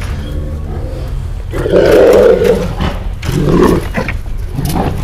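Large Kangal–Malaklı cross shepherd dogs growling and barking at each other in deep bursts: one long burst about a second and a half in, then two shorter ones.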